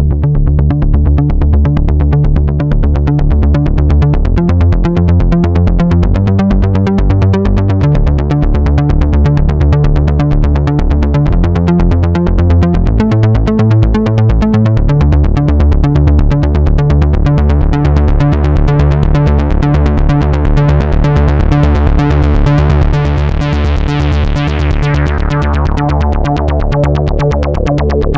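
Korg Mono/Poly analog synthesizer playing a fast, evenly repeating bass-heavy note pattern whose root note shifts every few seconds. About two-thirds of the way through, the filter opens and the tone grows brighter, then it closes again near the end.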